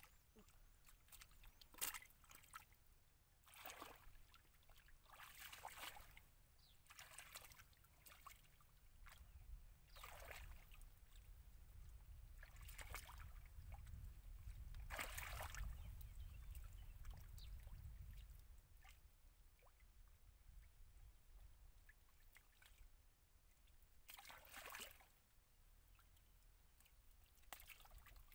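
Hands working in wet mud and shallow water, giving short splashes and squelches every second or two. A faint low rumble runs for several seconds in the middle.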